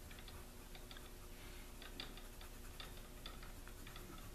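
A coloured pencil making short shading strokes on paper: faint, irregular scratchy ticks, a few a second.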